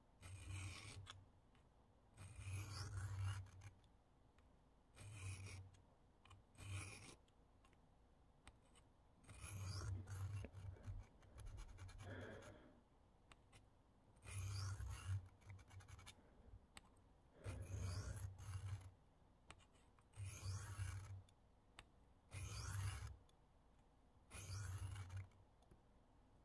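A steel knife edge drawn across a handheld diamond sharpening plate, scraping in about a dozen separate strokes, each roughly half a second to a second long, with short pauses between.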